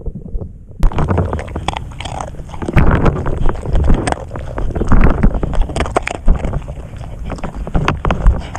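Beagle eating treats off a floating plastic plate right at the microphone: a dense run of chewing and mouth clicks over water sloshing and the plate knocking, starting abruptly about a second in.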